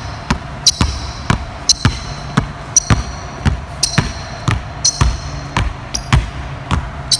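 Basketballs dribbled hard on a hardwood gym floor in a steady rhythm of about three bounces a second, with short high squeaks after some of the bounces.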